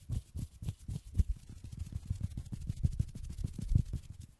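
Rapid, rhythmic low thumps of air as hands sweep back and forth past a binaural microphone: the ASMR 'helicopter' trigger, about four or five puffs a second.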